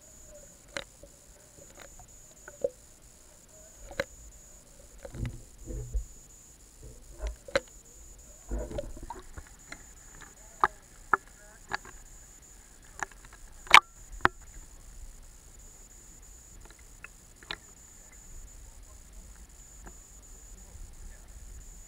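Water heard through a waterproof camera that is submerged and then floating at the surface: scattered sharp clicks and knocks, with a few low, muffled sloshing thumps about five to nine seconds in.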